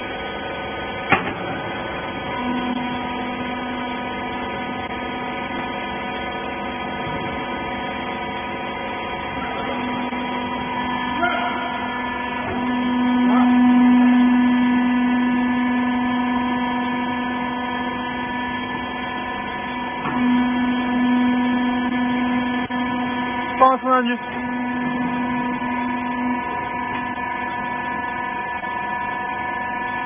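Hydraulic power unit of a horizontal rag baler running with a steady hum, swelling louder about halfway through as the ram presses the load of rags into a bale, with a few brief knocks.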